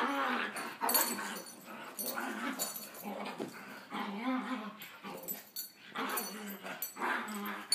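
A pit bull and a chihuahua play-fighting: repeated short growls, about one a second, with scuffling and rustling.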